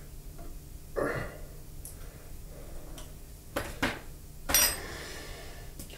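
A few light clicks and clinks of a dial test indicator and its metal mounting being taken off the milling machine setup by hand. The loudest, about four and a half seconds in, is a metallic clink with a brief ring.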